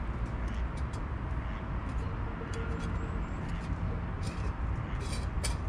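Steady low rumble of distant road traffic, with a few faint clicks scattered through it, several close together near the end.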